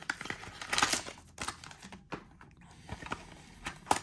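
Small cardboard card boxes and packs being handled: light rustling with scattered taps and clicks, busiest about a second in, and a sharper click near the end.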